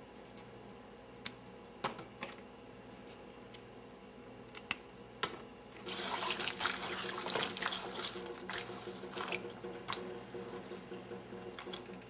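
A few sharp snaps as the stem ends of snow pea pods are pinched off by hand, then, about six seconds in, water splashing and sloshing as a hand swirls the pods in a stainless steel bowl of water.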